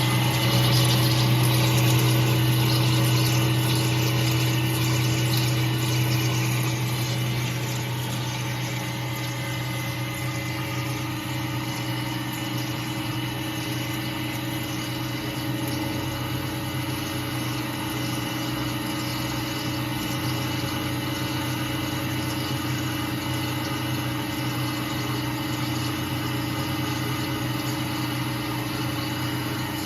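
CNC U-type drilling machine for rebar couplers running its automatic machining cycle: a steady low mechanical hum, louder and noisier for the first several seconds, then settling to an even level.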